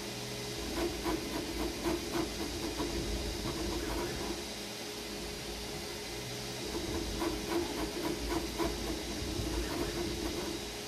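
Creality Ender 3 V3 KE 3D printer printing: its fans give a steady hiss under a stepper-motor hum that swells in two stretches, with runs of quick ticks during the moves.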